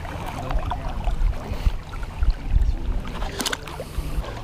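River current burbling and splashing around a wading angler's legs, with wind rumbling on the microphone. A brief sharp sound stands out near the end.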